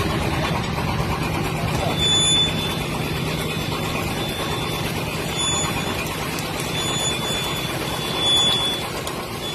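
An engine running steadily, its low hum easing off about halfway through.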